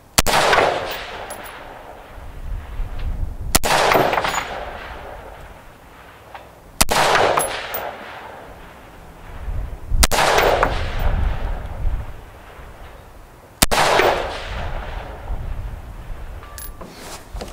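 Five rifle shots from an AR-15 with a 24-inch .223 Wylde barrel, fired one at a time about every three to three and a half seconds; each sharp crack is followed by a rolling echo that dies away over a second or two.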